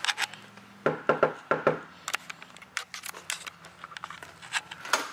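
Knuckles knocking on a front door, about five quick raps starting about a second in, followed by lighter clicks and rustling.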